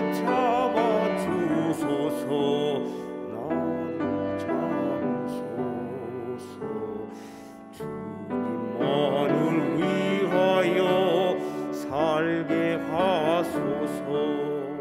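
An older man singing a Korean hymn in a baritone-tenor voice with vibrato, over instrumental accompaniment.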